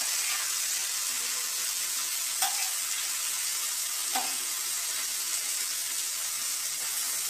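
Chopped okra and tomatoes sizzling in oil on a hot flat tawa: a steady frying hiss, with two brief clicks of the spatula stirring them, about two and a half and four seconds in.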